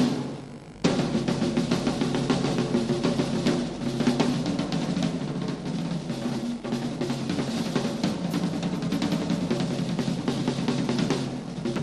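Double-bass-drum jazz kit played in a fast solo: dense rolls on snare and toms over bass drum strokes. There is a brief break about half a second in before the playing picks up again.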